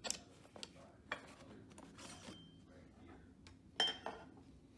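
Hand tools knocking and clinking lightly as they are handled in a fabric tool backpack's pockets and on the bench: a few scattered clicks, with the loudest, a quick pair with a brief ring, about four seconds in.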